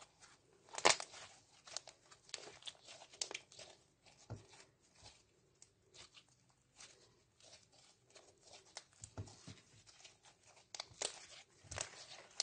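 Clear glitter slime being kneaded and stretched by hand as makeup powder is worked into it, giving irregular sticky clicks and small pops. The loudest pop comes about a second in, with another run of them near the end.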